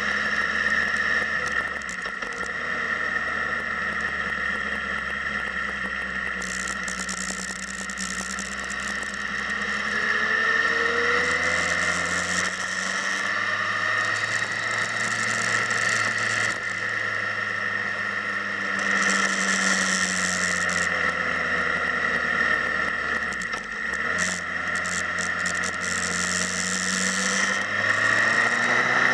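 Motorcycle engine running on the move, its pitch rising and falling several times as the speed changes, over a steady high whine.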